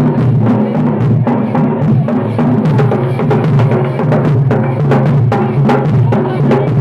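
Music driven by drums and percussion: a fast, steady run of sharp strikes over low sustained tones.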